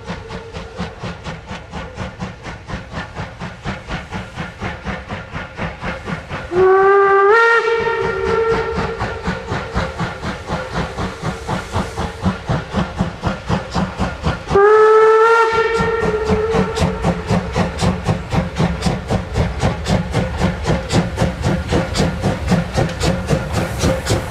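DR class 52.80 two-cylinder 2-10-0 steam locomotive 52 8134 working toward the listener with a steady rhythmic exhaust beat, and steam hissing from cylinder drain cocks that no longer close properly. Its steam whistle sounds twice for the ungated level crossing, each blast about a second long and sliding up in pitch as it opens.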